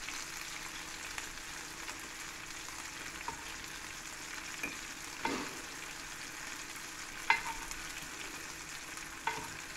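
Cheese frying in a pan in its own melted fat, with a steady sizzle. A metal spoon clinks against the pan a few times as the fat is spooned off.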